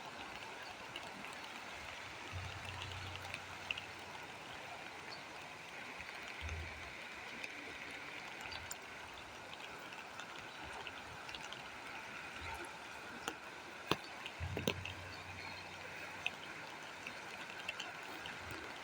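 Steady, faint rush of running rainwater and floodwater, with scattered small clicks and a few brief low rumbles.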